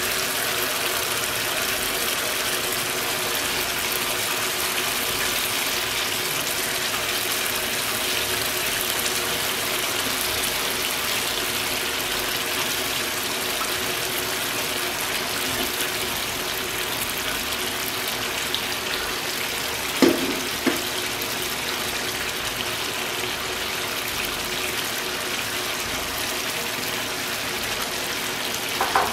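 Oil-rich spice paste sizzling and bubbling steadily in a frying pan, with a short knock about two-thirds of the way through and another at the end.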